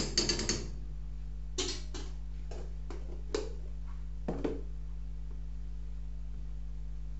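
A quick run of ratcheting clicks for about half a second, then a handful of separate light clicks and taps spread over the next few seconds, all over a steady low electrical hum.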